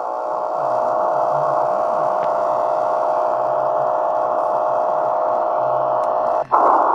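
A steady, continuous buzz over hiss from the loudspeaker of an XHDATA D-808 shortwave radio tuned to 15730 kHz. It is one of the new Russian 'Buzzer' signals on frequencies ending in 730, which the listener says might instead be over-the-horizon radar. About six and a half seconds in it cuts out for a moment and returns as a rougher, louder hiss.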